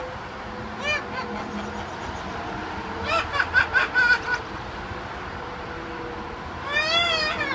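Green-winged macaw calling: one short call about a second in, a quick run of six or seven short notes around three to four seconds in, and a longer rising-and-falling call near the end.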